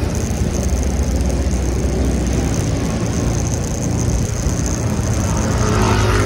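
Wind rushing over the microphone and road noise from an electric pedal-assist bike riding at about 17 km/h, steady throughout, with a thin high whine above it.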